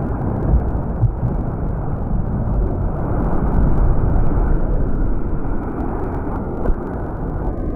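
Whitewater rushing around a surfboard and wind buffeting an action camera's microphone, heard slowed down as a steady, dull low rumble with nothing high in it. A few brief thumps from water or a hand hitting the camera break through.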